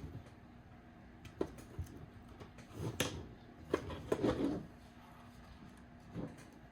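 Small plastic and metal RC truck parts clicking and knocking as they are handled and fitted by hand. There are a few separate sharp clicks, with a brief cluster of rattling about four seconds in.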